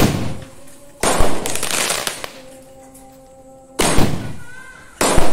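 Fountain fireworks going off one after another: four sudden loud bursts, each rushing and dying away over about a second.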